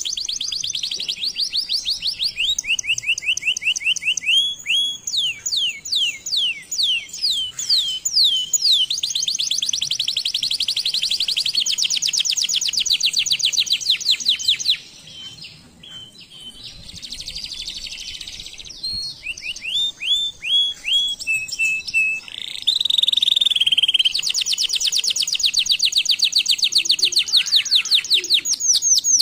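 Domestic canary singing a long song of fast trills, each made of rapidly repeated rising notes. About halfway through it drops to a softer, quieter passage, then goes back into loud trills.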